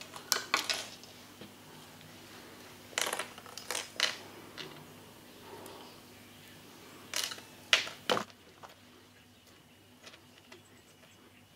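Small metal fishing tackle handled up close: the wire trace, swivel and hooks clicking and rattling in the fingers in three short bunches, near the start, around three to four seconds in, and around seven to eight seconds in, over a low steady hum.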